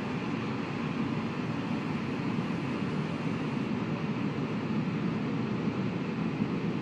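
Steady rushing noise with no tone or rhythm, the sound effect laid under an animated end title.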